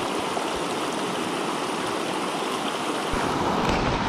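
Steady rush of a river's current flowing over rocks.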